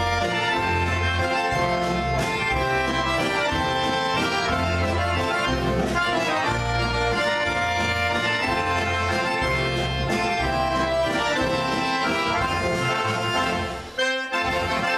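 Accordion ensemble playing live: several accordions play a tune together over acoustic guitar and double bass. The music breaks off for a moment near the end.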